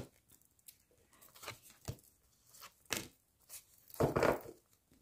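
A deck of oracle cards being shuffled by hand: a scatter of short sliding, flicking card sounds, with the busiest, loudest run about four seconds in.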